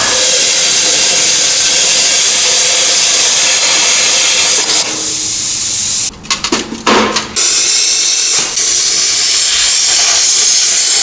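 HANDTEK Cut-40 plasma cutter cutting through a steel exhaust muffler shell: a loud, steady hiss of the air-driven arc. About six seconds in it stops and restarts in a few short stutters, then runs steadily again until it cuts off.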